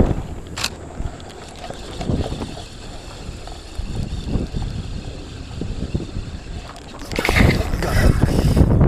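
Wind buffeting the microphone, a low uneven rumble, with a sharp click about half a second in. Near the end a much louder rushing noise lasts nearly two seconds.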